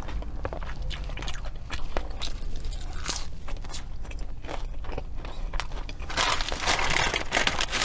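Close-miked chewing and crunching of fast food, with many small crisp bites and mouth clicks and a louder, denser stretch about six seconds in.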